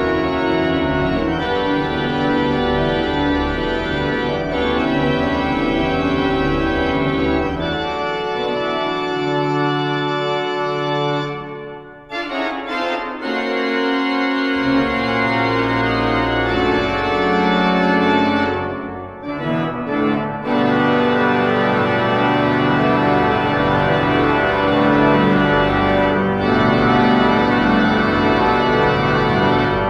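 Pipe organ playing sustained chords over a pedal bass line. About eight seconds in the pedal drops out and the music thins to a brief near-pause around twelve seconds. The full sound with pedal returns a couple of seconds later.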